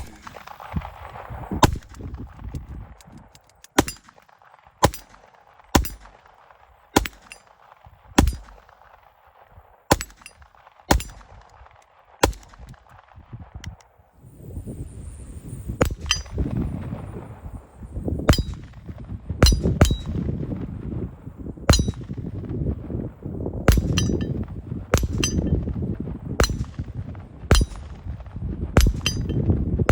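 Handgun fired in a steady string of single shots about a second apart, each a sharp crack with a metallic ring. A short pause near the middle, then another string of shots.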